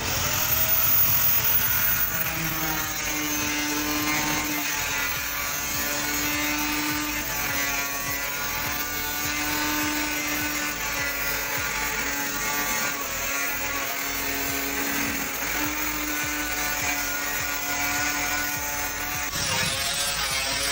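Angle grinder cutting a galvanized steel sheet, its motor whine wavering in pitch over a steady grinding hiss as the disc works along the sheet. The hiss eases off near the end.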